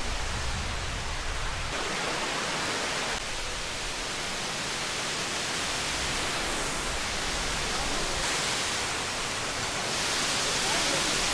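Steady rushing of water falling at a waterfall, an even hiss-like wash of noise with small shifts in level a few times.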